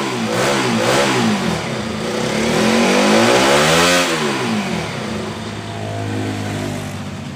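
Motorcycle engine, running on oil treated with EGB Safety Engine Lube additive, revved in a few quick throttle blips and then one longer rev that rises and falls, before it settles to a steady idle about five seconds in.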